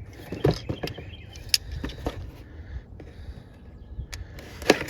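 Scattered light clicks and knocks of an ignition coil and tools being handled, over a low rumble.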